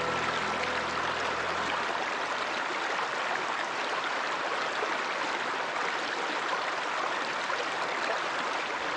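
Running water of a stream or river, a steady rushing hiss with no let-up. Held music tones fade out in the first two seconds.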